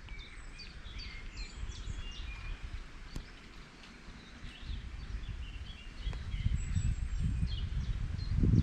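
Woodland birds chirping and singing, many short calls overlapping. A low, uneven rumble grows louder from about six seconds in.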